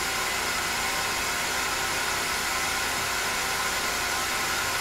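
Mazak CNC lathe running a circle-milling cycle: the live-tooling spindle spins an end mill inside a bore as it works outward from the center in a circle. A steady, even whir with a mix of fixed tones throughout.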